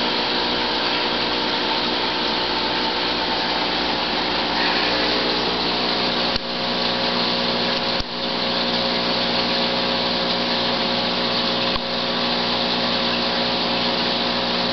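Aquarium pump running: a steady hum with hiss, broken by a few brief clicks.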